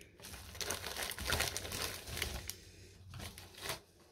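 Plastic packaging bags crinkling and rustling as they are handled and pulled open, in uneven bursts with a short pause about two and a half seconds in.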